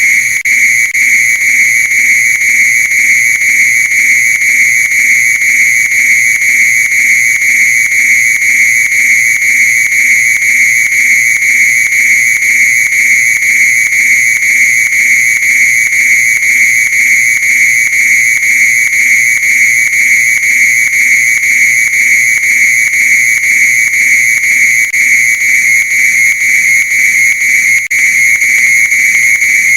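Fire alarm sounder giving a loud, continuous high-pitched tone, held at one steady pitch without a break.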